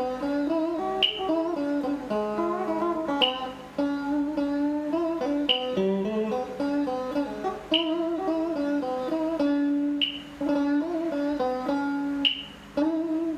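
Electric guitar playing a slow melody with bent and wavering notes in a Vietnamese traditional style, the guitarist practising the tune. A short sharp click marks time about every two seconds.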